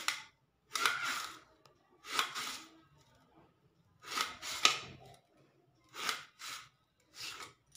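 Kitchen knife slicing an onion into thin strips on a stainless-steel plate: short scraping cuts about once a second, with a sharp click of the blade on the plate about four and a half seconds in.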